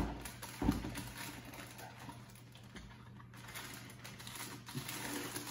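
Two soft thumps about a second apart near the start, then faint rustling and light clicks of small packaged items being sorted by hand.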